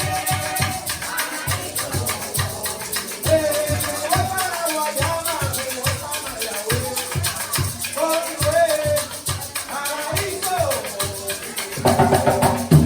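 Puerto Rican bomba music: a singer over a steady hand-drum beat and a shaker (maraca). It gets louder and heavier in the drums about a second before the end.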